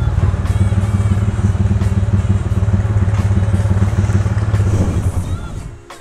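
Honda CB motorcycle engine idling steadily, then switched off a little after five seconds in.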